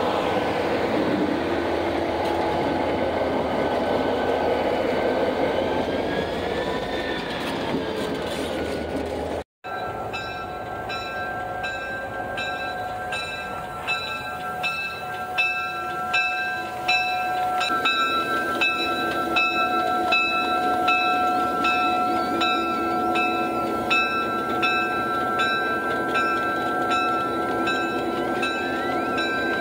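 Diesel locomotive running, with a steady whine over the engine noise. After a brief cut about a third of the way in, a regular ringing sounds about every two-thirds of a second over the same steady whine.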